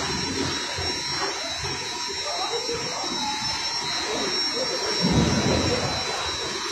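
Wind buffeting the phone's microphone high on an exposed tower, a gusty rumble that swells about five seconds in, with a faint steady high whine underneath.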